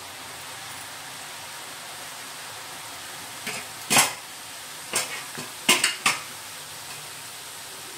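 Besan sev strands deep-frying in hot oil in a metal kadhai, a steady sizzle. From about halfway through, a metal utensil knocks sharply against the pan about six times in quick succession; these knocks are the loudest sounds.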